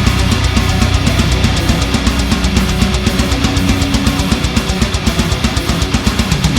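Background music: loud, fast heavy-metal-style rock with distorted guitar and a driving drum beat.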